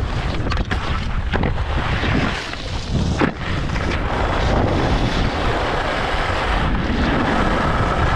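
Wind rushing over the microphone of a moving skier, with the steady hiss and scrape of Völkl skis sliding and carving on packed snow, and a brief sharper hit about three seconds in.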